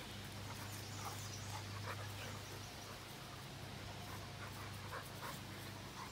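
A springer spaniel and a pit-bull-type dog play-wrestling: panting and short, scattered scuffling sounds over a steady low hum.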